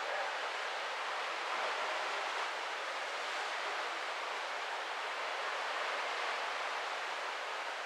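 Steady rushing noise of sea water and wind past a moving cruise ship, an even hiss with no distinct events.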